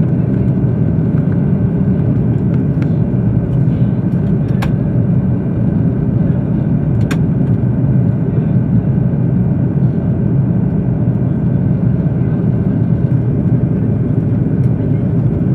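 Airbus A330-200 cabin noise in flight: a steady, loud, low rumble of engines and airflow heard from inside the passenger cabin. Two faint clicks sound about four and a half and seven seconds in.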